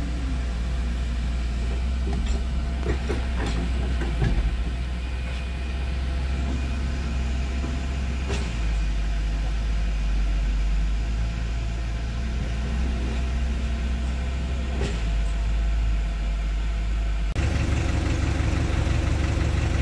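Small dump truck's diesel engine running steadily with a deep rumble and a few faint clicks; the engine note changes abruptly near the end.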